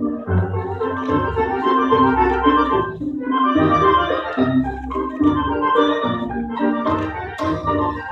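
Recorded tango orchestra music: bandoneons play sustained chords in phrases broken by short pauses, over a low bass line.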